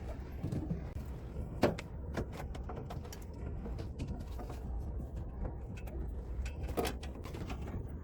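Scattered light knocks and clicks, as of tools or parts being handled, over a low steady rumble, with two sharper knocks about a second and a half in and near the end.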